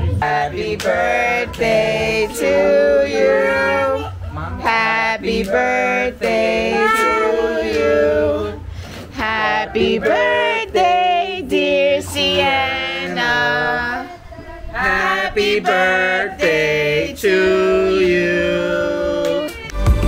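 Singing: a song in phrases of several seconds each, with short breaks between them.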